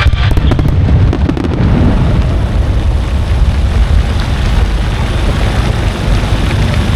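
Fireworks going off in a dense barrage: continuous rumbling booms of shell bursts, with sharp crackling over the first second or so.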